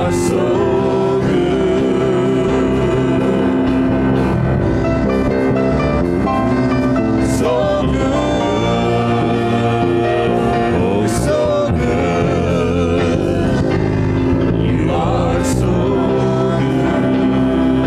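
Live worship band playing a gospel song with several voices singing over keyboard, guitars and drums, cymbals crashing every few seconds.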